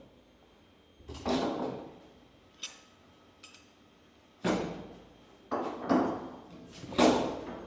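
Wooden door-shutter parts knocked and set down on the bench, with about four hollow knocks and a few light clicks in between, during trial fitting of the frame.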